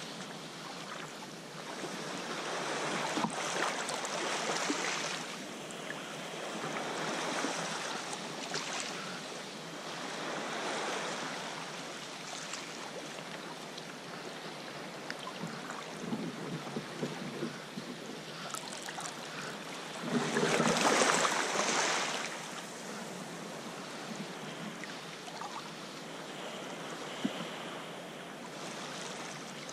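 Sea swell washing and surging over rock ledges at the foot of sea cliffs, rising and falling every few seconds, with one louder surge about two-thirds of the way through.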